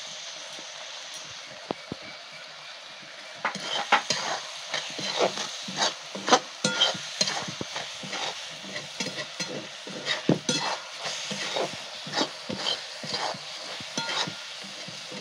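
Metal spatula scraping and stirring a thick, grainy paneer-and-milk mixture around a metal wok over the heat, with a steady sizzle underneath. The stirring strokes start about three and a half seconds in and go on quickly and repeatedly, two to three a second, as the kalakand mixture cooks down dry and crumbly.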